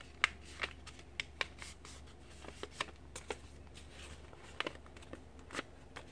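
A folded paper airplane being handled and flattened by hand: irregular sharp crinkles and snaps of stiff paper, a few each second.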